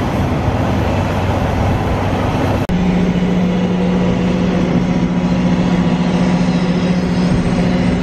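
Combine harvester running alongside, a steady low engine drone with a few overtones, heard through a pickup's cab. Before that, steady vehicle and road noise from a gravel road, broken off by a sudden cut about two and a half seconds in.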